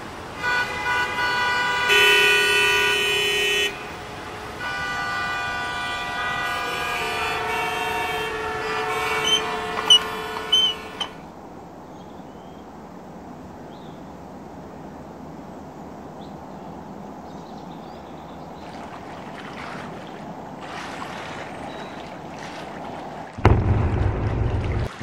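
Car horns honking in long, steady blasts for the first ten seconds or so, then a quieter background hiss; a loud low rumble starts near the end.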